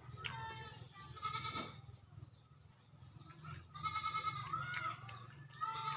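An animal bleating about four times, short wavering calls a second or two apart.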